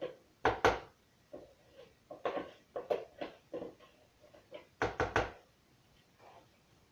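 Irregular knocks and clacks of kitchen utensils and a cake pan being handled, in quick clusters of two or three, loudest about half a second in and about five seconds in.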